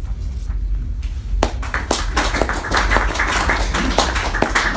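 Small audience applauding, many hands clapping in an irregular patter that starts about a second and a half in.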